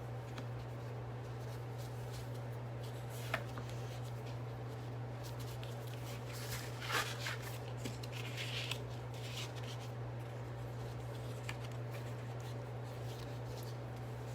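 Ribbon and paper being handled while a bow is tied: soft rustling with a small tap about three seconds in and a louder burst of rustling around the middle, over a steady low hum.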